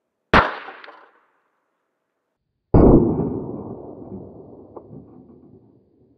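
A sharp click about a third of a second in and a fainter one half a second later, then a 12-gauge pump-action shotgun fires a buckshot load about 2.7 s in, the loudest sound, its report echoing and dying away over about three seconds as the shot knocks over the aluminium target plates.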